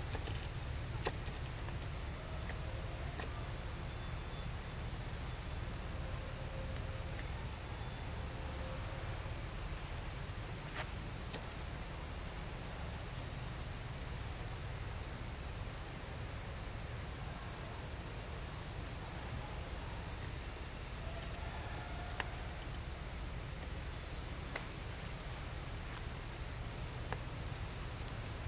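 Forest insects chirping in an even, repeating pulse, about one beat a second, over a steady high whine, with a low rumble underneath and a few faint clicks.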